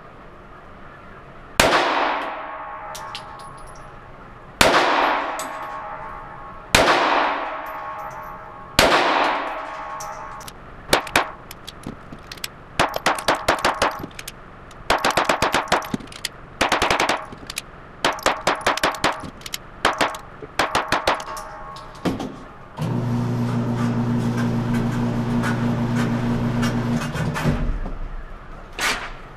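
.380 semi-automatic pocket pistols fired in an indoor range: four single shots a couple of seconds apart, each echoing off the concrete, then rapid strings of shots as each magazine is emptied. Near the end, an electric target carrier motor hums steadily for about five seconds, bringing the target back to the booth.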